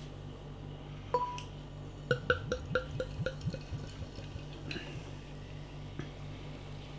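Beer being poured from a glass bottle into a glass. A light clink of glass on glass about a second in, then a rapid run of glugs from the bottle neck for about a second and a half as air gulps back in, then the pour runs on more quietly.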